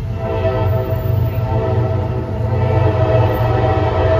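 Freight locomotive's air horn, on the lead unit, CSX GE ES44AC-H #3208, sounding one held blast that grows louder as the train nears, over a steady low rumble.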